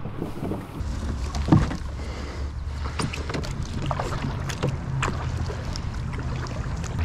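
A solo canoe being paddled with a double-bladed paddle: the blades swishing and splashing through the water, with a few sharp knocks, over a low wind rumble on the microphone.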